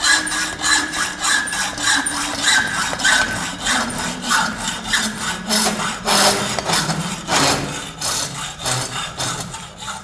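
Hacksaw cutting 20mm black enamel steel conduit clamped in a pipe vise, in steady back-and-forth strokes at about two a second.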